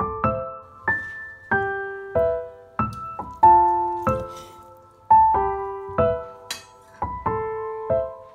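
Background piano music: a slow melody of single notes, each struck and left to fade, about one to two notes a second.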